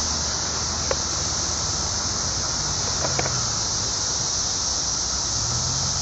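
Dense chorus of periodical cicadas (Brood XIII) buzzing in the trees, a steady high-pitched buzz, over a faint low hum.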